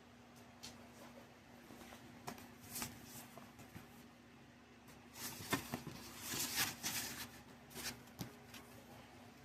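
Handling noise from a vinyl record's packaging and sleeves: soft rustling and light clicks, busiest and loudest from about five to seven seconds in, over a faint steady hum.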